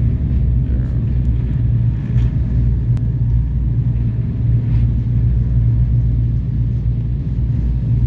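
Catamaran's engines running steadily underway, a loud, even low rumble.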